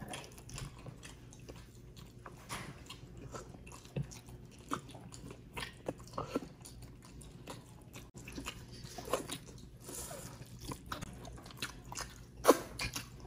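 Close-up eating sounds of roast chicken being bitten and chewed: soft scattered crunches and mouth sounds, with a sharper crunch near the end.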